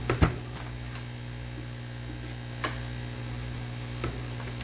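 Electric heat gun running with a steady electrical hum while it warms the iPad glass to loosen the adhesive. A few light sharp clicks are heard, at the start, midway and near the end.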